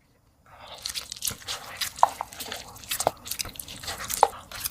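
Biting and chewing a giant pepper: irregular crunchy crackles and wet mouth sounds, starting about half a second in.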